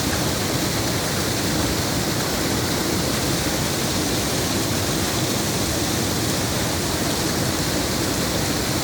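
A waterfall's falling water rushing in a steady, unbroken wash of noise.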